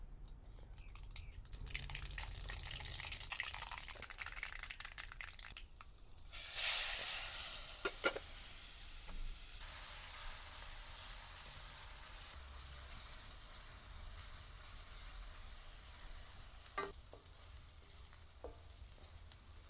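Tempering of dried red chillies, bay leaf, cumin, mustard seeds, asafoetida, onion and curry leaves sizzling in hot oil in a pan. There is a louder surge of sizzling about six seconds in, and a few short clinks from a spoon stirring.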